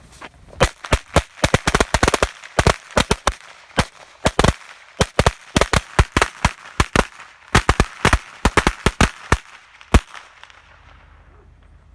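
A string of vintage Thunder Bomb Class 5 Star firecrackers going off: dozens of sharp bangs in a rapid, irregular run that stops about ten seconds in.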